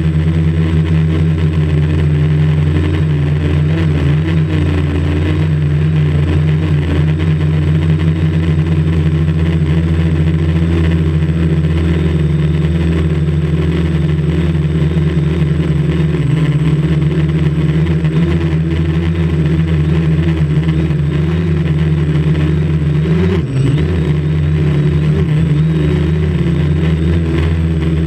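Quadcopter's electric motors and propellers, heard from its own onboard camera, holding a steady buzzing hum during flight. The pitch dips briefly about five seconds before the end.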